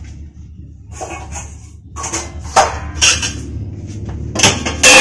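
Stainless-steel dishes and utensils clanking and knocking as they are handled at a kitchen counter: a couple of sharp clanks two and a half to three seconds in, and the loudest clatter near the end.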